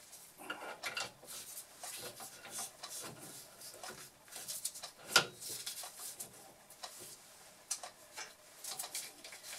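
Change gears being fitted to a Boxford lathe's gear train: scattered small metallic clicks and clinks of gear wheels and their fittings being handled, with one sharper clink about five seconds in.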